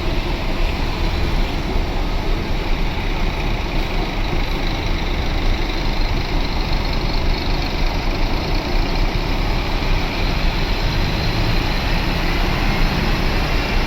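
Intercity bus engine running close by: a loud, steady engine rumble with road noise and no horn.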